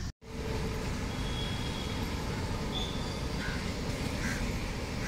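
Crows cawing several times, about once a second in the second half, over a steady low rumble of trains and city traffic, after a brief cut-out at the very start.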